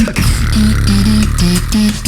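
Three-person beatbox crew performing a cappella: a held vocal bass under percussive mouth sounds, giving way about a second and a half in to short hummed bass notes in a steady rhythm.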